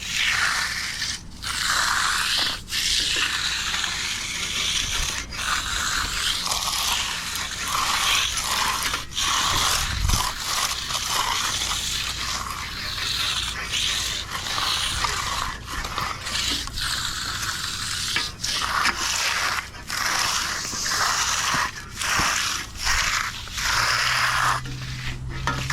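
Hand tools scraping and dragging through wet concrete in repeated strokes, with a short break every second or two.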